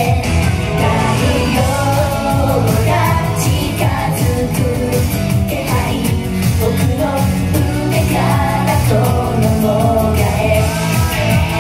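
Upbeat J-pop idol song: a group of women singing into microphones over a loud backing track.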